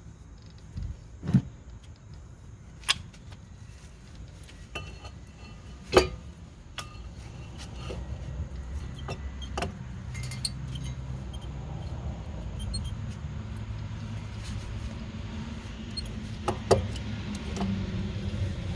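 Scattered sharp metallic clinks and knocks of tools and parts being handled, the loudest about six seconds in, over a low steady hum that swells from about a third of the way through.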